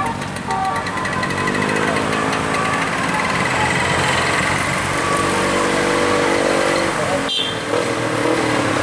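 Road vehicle engine running and rising in pitch as it pulls up the slope, then holding steady. A few notes of a musical multi-tone horn fade out at the start, and there is one sharp click about seven seconds in.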